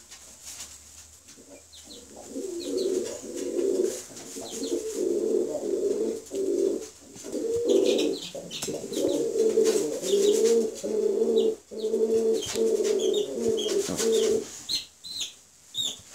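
Baby chicks peeping in short high cheeps. A lower, continuous pitched sound runs under them from about two seconds in until shortly before the end.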